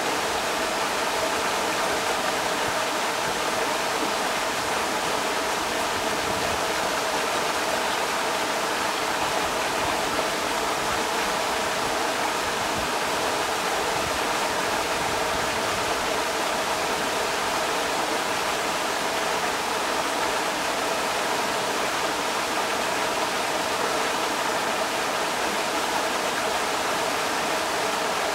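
Creek water rushing steadily over rocks, an even, unbroken rush of water with no change over the whole stretch.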